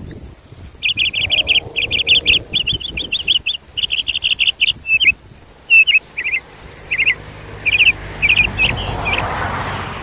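A small songbird singing a fast run of repeated high chirps, then shorter separate phrases. Near the end a rush of wind on the microphone swells up.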